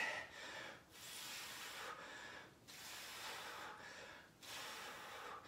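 A man breathing hard from exertion, faintly: about four long breaths, each lasting about a second.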